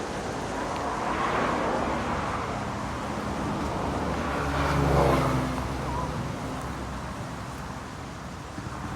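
Road traffic with a motor vehicle passing, loudest about halfway through, its engine note rising and then falling away.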